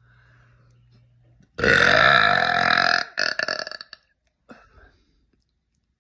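A woman's long, loud burp about a second and a half in, lasting over a second and breaking up into a choppy, rattling tail before it stops.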